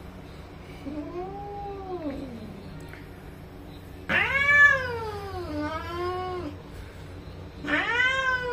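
Bengal cats mating, with drawn-out yowls that rise and then fall in pitch: a softer one about a second in, a loud long one about four seconds in, and another loud one starting near the end.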